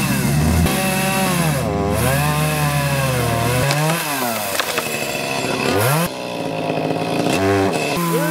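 Two-stroke gas chainsaw cutting through a tree limb, the engine revving up and dropping back several times as the chain bites into the wood.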